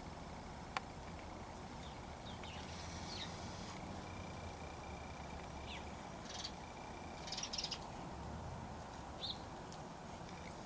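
Birds calling faintly outdoors: a handful of short, falling chirps scattered apart, with a few brief harsher calls in the middle, over a steady low background. A single sharp click comes about a second in.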